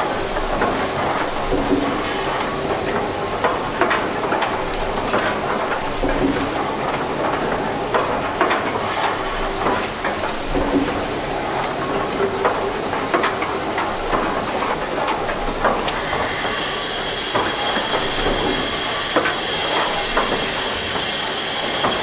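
Two 1885 Gimson steam beam engines running together: a steady steam hiss over a constant light clatter of valve gear, with a soft low beat every couple of seconds. A higher, steadier hiss comes in about two-thirds of the way through.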